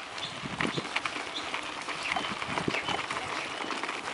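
Mountain bikes rolling over a rough gravel track: tyres crunching and the bike rattling in a stream of irregular clicks and knocks.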